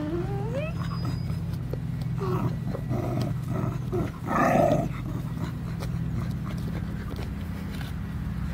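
Kooikerhondje puppies play-fighting: a rising whine at the start, then a run of short yips and growls, with one louder yelp about four and a half seconds in. A steady low hum runs underneath.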